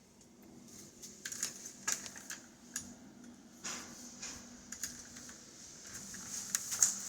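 Scattered small clicks and taps of a multimeter and its wires and parts being handled on a desk, irregular and of varying loudness, over a faint steady hum.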